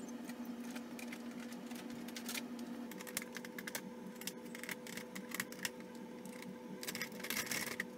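Quiet, irregular clicks and taps of a hand tool on the hex-headed Dzus quarter-turn fasteners and the plastic fairing panel as the side panel is undone and lifted off, over a faint steady hum.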